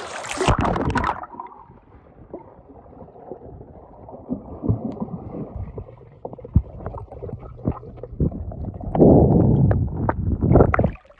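A phone going under a swimming pool's surface with a splash, then the muffled sound of being underwater: low gurgling and scattered small clicks, with a louder stretch of churning water near the end.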